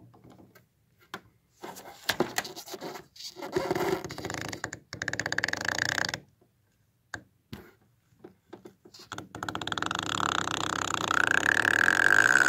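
Syringe pushing cleaning solution and air into the clogged black-ink inlet of an Epson WorkForce WF-3640 printhead, gurgling and sputtering as the liquid is forced through the blocked nozzle. The sound comes in stretches with a pause in the middle, then builds again near the end with a squeal that slides down in pitch.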